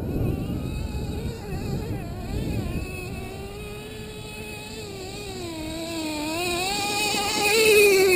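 Small combustion engine of a radio-controlled off-road car running on dirt, its high pitch wavering up and down with the throttle. It grows louder as the car approaches and is loudest near the end.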